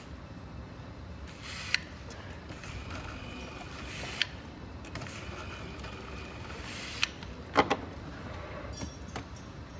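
Steady factory room noise with a few sharp clicks from handling, spaced a couple of seconds apart. The loudest is a quick double click near the end.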